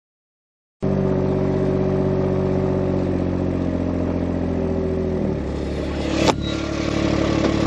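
A Kubota farm vehicle's engine running steadily. It starts abruptly after a moment of dead silence, drops in pitch about five seconds in, and a sharp click sounds shortly after.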